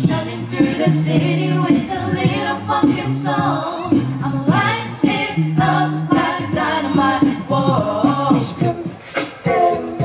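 A cappella vocal group singing a K-pop song in several-part harmony, with held low bass notes under the melody and sharp percussive vocal hits.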